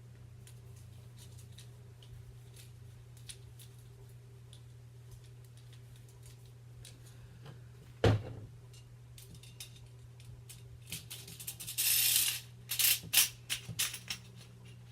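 AR-15 rifle parts handled during cleaning: scattered light clicks, a single sharp knock about eight seconds in, a short scrubbing rush near twelve seconds, then a quick run of metallic clicks and taps.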